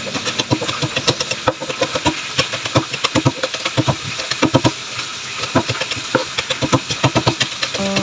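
Kitchen knife chopping green chillies on a cutting board: quick knocks of the blade hitting the board, several a second, in uneven runs.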